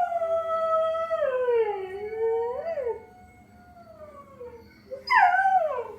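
Pet dog howling just after waking: one long howl that slides down in pitch and trails off, then a second, shorter howl about five seconds in that falls steeply.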